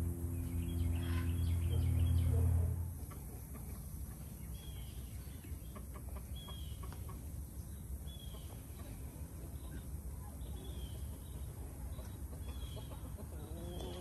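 Chickens clucking and a small bird chirping about once a second, short repeated calls. For the first three seconds a loud steady low hum covers them, then cuts off.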